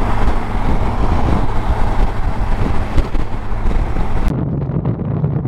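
Wind rush and road noise on a Kawasaki Versys 1000 at motorway speed, with the engine a steady drone underneath. About four seconds in the hiss cuts off sharply, leaving a duller, lower engine hum.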